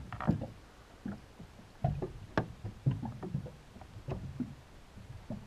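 Irregular light knocks and small water splashes around a small fishing boat, water slapping against the hull.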